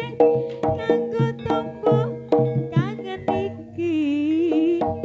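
Javanese gamelan music for a barongan dance: kendhang drums and struck bronze instruments playing a fast, evenly repeating pattern. A wavering held melody line comes in about four seconds in.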